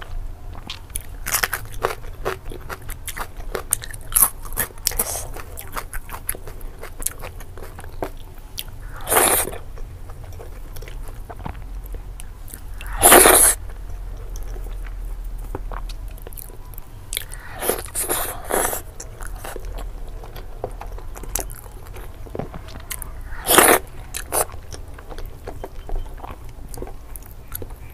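Close-miked chewing and wet mouth clicks of a person eating with their fingers, broken by several louder crunchy bites.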